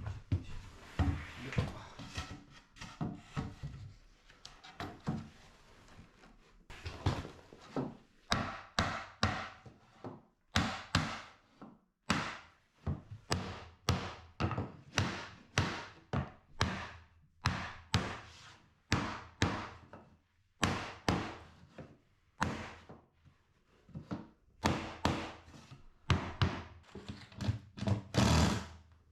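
A long series of wooden thuds and knocks, about one or two a second, each ringing briefly.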